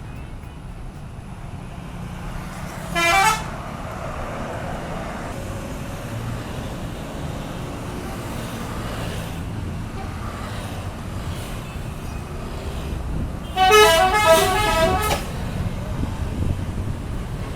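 Telolet horn on an intercity bus: a multi-tone musical air horn plays a short rising run of notes about three seconds in. Near the end it plays a louder melody of several quick notes lasting about a second and a half, over a steady rumble of bus engines and traffic.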